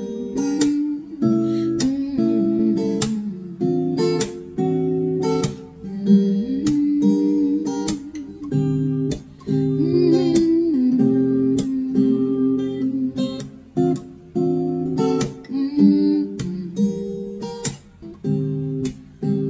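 Background music: an acoustic guitar strumming chords, the chords changing about every second.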